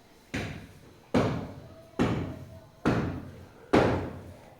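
Five dull knocks in an even rhythm, a little under a second apart, each fading quickly.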